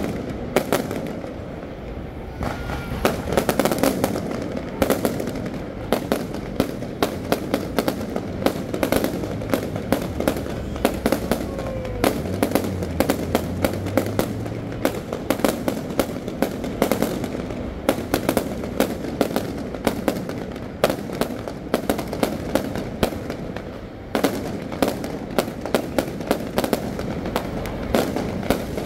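Aerial fireworks going off in a dense, continuous barrage, with many sharp bangs and crackles every second.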